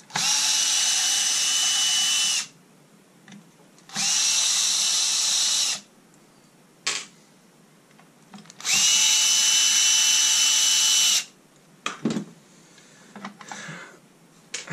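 Power drill-driver backing out screws: three separate runs of a steady motor whine, each about two seconds long, the pitch climbing briefly as each run spins up. A few light knocks of parts being handled come near the end.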